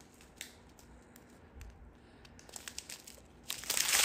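Small clear plastic zip bags of diamond-painting drills crinkling as they are handled, with scattered light ticks and a louder crinkle near the end.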